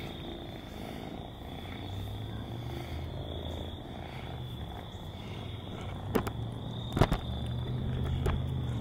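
Outdoor ambience with a steady high-pitched insect drone and a low hum that sets in about two seconds in. A few sharp knocks come near the end; the loudest is about seven seconds in.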